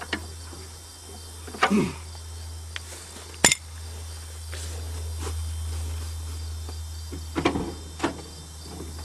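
Crickets chirping over a steady low hum, broken by a few sharp clicks and knocks, two of them near the start and a cluster near the end.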